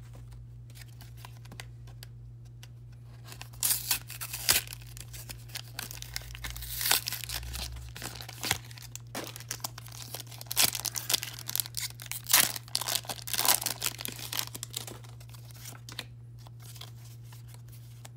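Pokémon booster pack's foil wrapper being torn open and crinkled by hand: irregular crackling and tearing that starts about three seconds in and stops a few seconds before the end.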